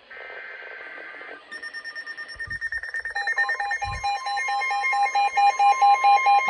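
Emergency Alert System alert tones: a short buzzy data burst, then rapidly pulsing electronic beeps that grow louder, joined about three seconds in by a steady two-note alert tone.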